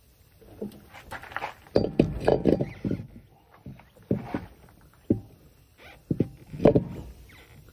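Irregular knocks, bumps and scrapes as a heavy steel-rimmed tyre is lifted and worked onto a hub spindle.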